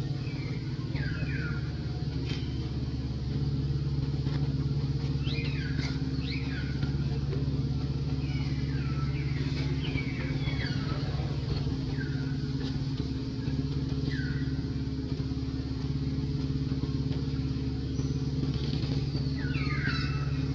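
A steady low engine-like hum, holding one pitch, with short high chirping calls that fall in pitch, often two in quick succession, repeating every second or two.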